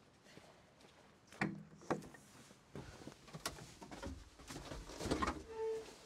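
Knocks and clunks of someone climbing into a Kioti tractor cab and handling the cab door, with a short steady beep near the end.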